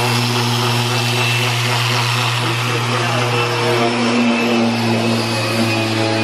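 Electric orbital sander with a vacuum dust-extraction hose running steadily while sanding car body panels: a constant motor hum over a broad whirring hiss, dipping briefly about four seconds in.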